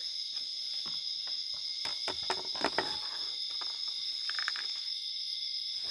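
Steady chorus of night insects such as crickets, a constant high-pitched trilling. Scattered knocks and rustling break in about two to three seconds in.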